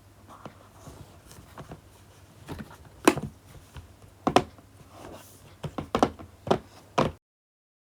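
Packaging being handled and opened: a run of sharp taps and knocks on a cardboard box, irregular at first and then several in quick succession, over a low steady hum. The sound cuts off to dead silence about seven seconds in.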